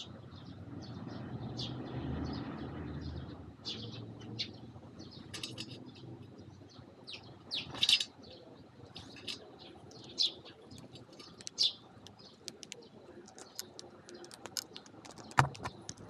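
Eurasian tree sparrows chirping in many short, repeated high calls while feeding, with a brief louder burst of noise about halfway through and a sharp tap near the end.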